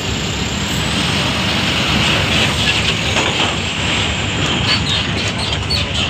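Diesel engines of coach buses running, a steady low rumble, as one coach pulls slowly forward.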